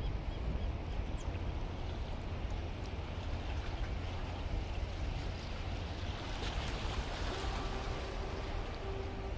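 Outdoor waterside ambience: a steady low rumble of wind on the microphone mixed with water noise. A faint steady hum joins about seven seconds in.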